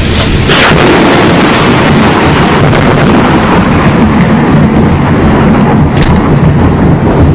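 Thunder from a close lightning strike: a crack about half a second in, then a loud, sustained low rumble, with another short crack about six seconds in.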